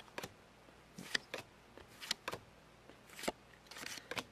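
Paper trading cards being handled and sorted: a string of short, sharp clicks and snaps of card stock, irregularly spaced, with a brief rustle near the end.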